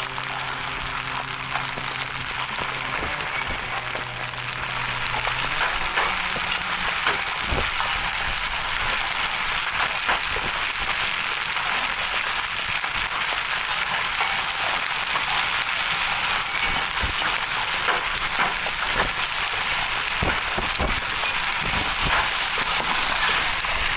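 Softball-sized hailstones pounding down in a dense, steady clatter, with many sharp cracks of single stones striking hard surfaces; it swells about four to five seconds in.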